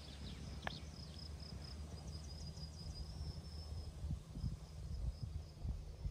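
Insects chirping in a high, steady, pulsing tone over a low rumble that grows in the second half, with a single sharp click a little under a second in.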